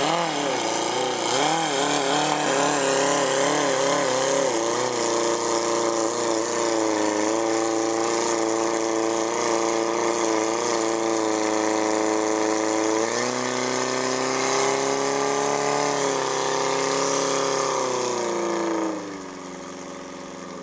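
Portable fire pump's petrol engine revved hard in quick surges, then held at high revs while it drives water out through the hoses. The revs step down slightly about thirteen seconds in and fall away near the end as the engine is throttled back.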